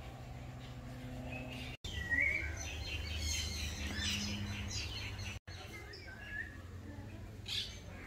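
Birds chirping and calling, busiest in the middle, over a low steady hum. The sound drops out for an instant twice.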